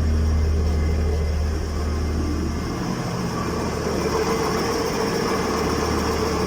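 Front hub bearing droning as the jacked-up front wheel spins in third gear, driven by the running car engine; a steady low hum. The drone is the sign of a worn hub bearing, the left-front one suspected of the humming at road speed.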